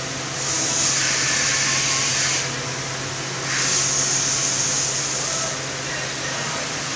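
Two hissing blasts, each about two seconds long and starting and stopping abruptly, over the steady hum of a Weinig Conturex CNC woodworking machining centre. The blasts sound like compressed air blowing off the spindle or tooling between operations.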